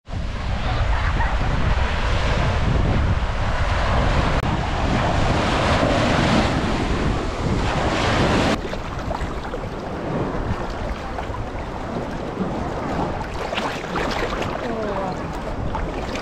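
Small waves breaking and washing over the shore, a dense rush with wind buffeting the microphone. About halfway through it cuts to a quieter, choppier lapping and splashing of water around a camera held at the surface.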